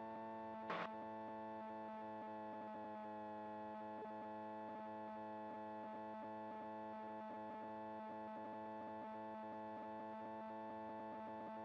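Steady cockpit drone of the Piper Sport's Rotax 912 engine and propeller in cruise, a hum of several steady tones. A single short click sounds about a second in.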